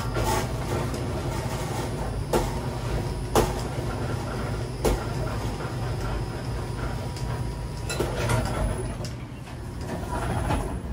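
Steady low hum of shop equipment, with three sharp knocks between about two and five seconds in and a short rattle about eight seconds in.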